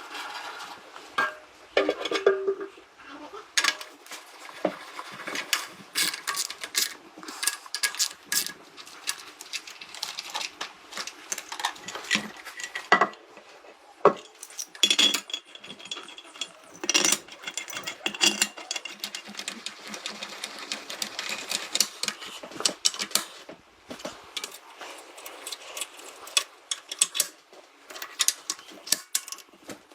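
Irregular light clicks and taps of hand tools on metal, many close together with short pauses.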